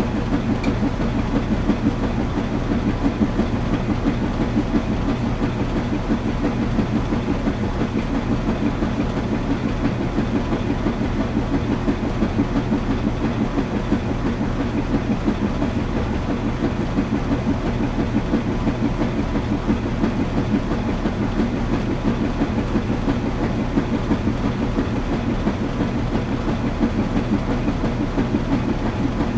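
Washing machine running steadily: a constant low rumble with a fast, even churning flutter and a steady hum.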